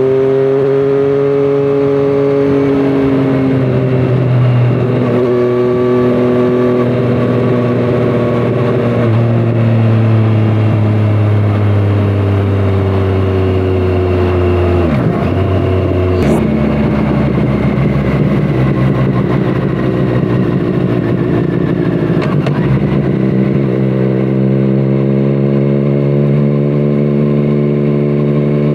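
2017 Triumph Street Triple 765RS's inline three-cylinder engine through a Scorpion Serket exhaust, heard onboard while riding. The engine note slowly falls, dips and then steps up sharply about sixteen seconds in, and climbs again near the end as the bike accelerates.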